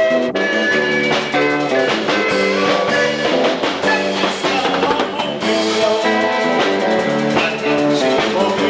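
A rock band playing, with guitar and a drum kit keeping a steady beat.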